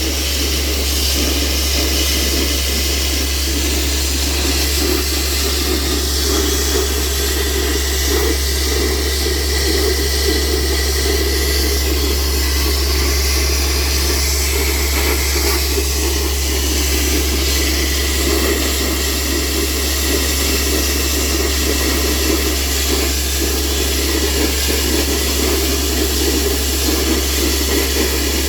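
Borewell-cleaning air compressor running steadily: a constant low engine hum under a loud rush of compressed air and water blowing out of the bore.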